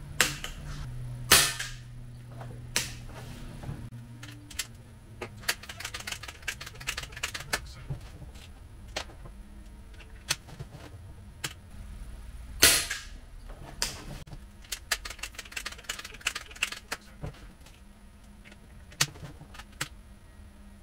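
Two sharp reports from a moderated .177 multi-pump air rifle, the Seneca Dragonfly Mk2, about a second in and again about 12 seconds later. Between them come knocks and runs of quick clicks as the rifle is pumped, its bolt worked and pellets loaded, with fainter knocks near the end.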